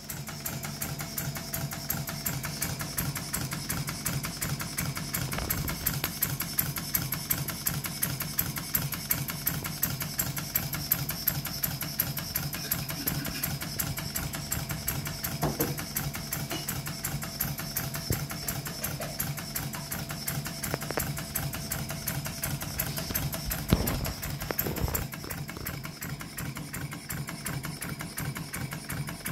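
Stuart Turner half beam model steam engine running fast and steadily, its exhaust and moving parts beating in a quick, even rhythm. A couple of low thumps late on.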